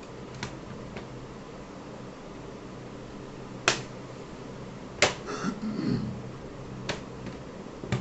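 Sharp clicks and taps from the laptop's hard plastic parts being handled, five spread out with the loudest two near the middle, over a steady low hum.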